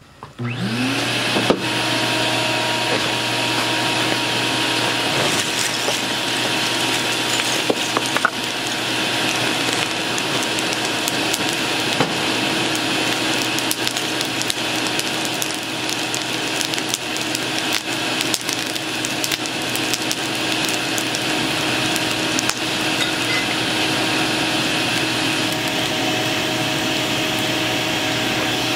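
Blacksmith forge blowing hard: a steady rushing roar with a constant motor hum, as from the forge's air blower, starting about half a second in. Over it the wood-and-charcoal fire crackles and pops now and then.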